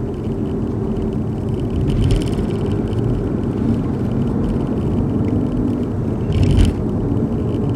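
Cabin noise of an Audi A4 B6 on the move: a steady low rumble of tyres and running gear, with the trembling hum of a worn front right wheel bearing that has play in it. Briefly louder about six and a half seconds in.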